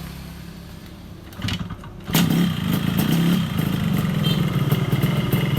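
A Yamaha RX-King's single-cylinder two-stroke engine starts about two seconds in and then runs steadily with a fast, rough beat. The rough noise is the sign of a worn connecting rod, as the mechanic points out.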